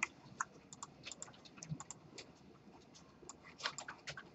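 Faint, irregular clicks of computer keyboard keys being pressed, with a short cluster of clicks late on.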